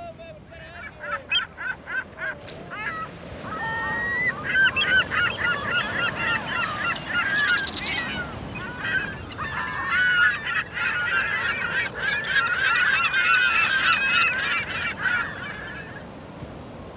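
A flock of birds calling, many honking calls overlapping, building up a few seconds in and stopping about a second before the end.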